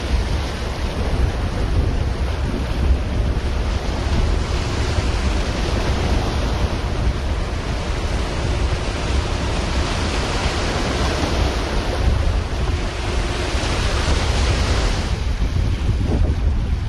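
Strong wind buffeting the microphone, a heavy low rumble. Over it, a rushing hiss of sea and wind swells through the middle and drops away about fifteen seconds in.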